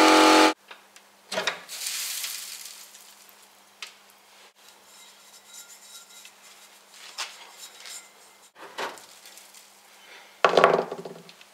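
Sandblasting cabinet's air blast hissing loudly, cutting off abruptly about half a second in. Then sandblasted metal parts of a hydraulic jack knocking and clinking as they are handled in the cabinet, with a louder clatter near the end.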